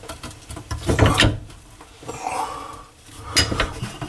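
Knocks, clunks and scraping of hands and a tool working at the nut on a bathroom sink's pop-up drain pipe, with two louder bursts of clattering, about a second in and again near the end.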